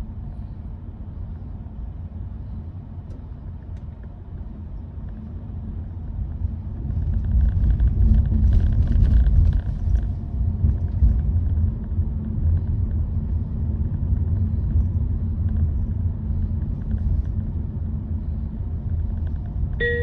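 Low rumble of road and drive noise inside the cabin of a Honda Vezel e:HEV hybrid car on the move, growing louder for a few seconds about seven seconds in, then settling.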